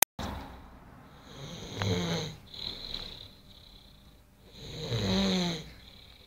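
A man snoring in his sleep: two loud snores about three seconds apart, with softer breathing between them.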